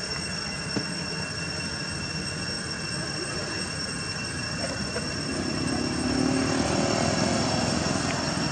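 Steady outdoor background noise with a thin, high, steady whine; a low drone swells up about five and a half seconds in and stays louder.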